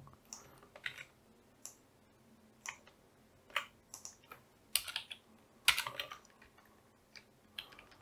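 Computer keyboard being typed on: scattered key clicks in short, irregular runs, busiest about five to six seconds in.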